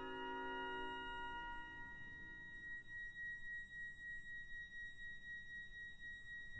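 Pipe organ playing softly: a quiet chord dies away in the first second or so, leaving a single high note held on alone. Just at the end a loud low chord comes in.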